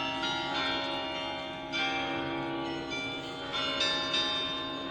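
Church bells ringing the noon hour: fresh strokes come in every second or so, each over the long, overlapping hum of the earlier ones.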